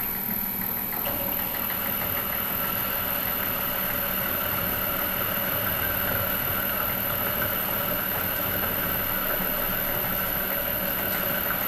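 Milling machine spindle running steadily while a counterbore cuts into a metal part for an M5 screw hole: an even machine hum with a thin high whine.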